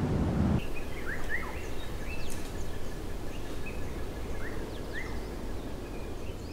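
Outdoor ambience with birds giving short, rising chirps here and there, and a faint thin steady high tone for a few seconds, over a quiet steady background. A low rumble cuts off suddenly under a second in.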